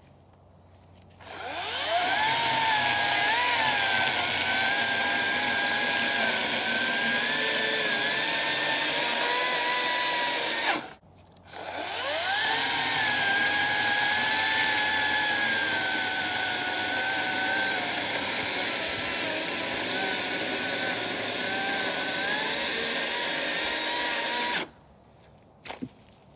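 Ryobi cordless electric chainsaw spinning up with a rising whine and cutting firewood, its pitch wavering as the chain works through the wood. It stops briefly about halfway, starts again, and stops near the end, followed by a short click.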